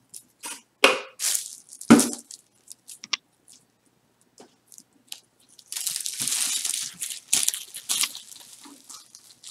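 Gift-wrapping paper crinkling and rustling as a wrapped package is handled: scattered crackles for the first few seconds, then steady crinkling for about three seconds near the end.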